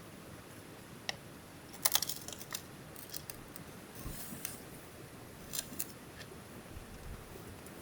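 Scattered sharp, crisp clicks and snips from small objects being handled, with a quick cluster about two seconds in and a short crinkly stretch near the middle.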